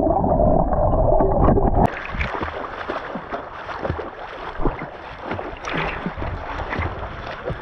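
Muffled rushing of water heard through a camera held underwater in floodwater. About two seconds in the camera breaks the surface, and the sound turns into open-air splashing and sloshing water as people swim.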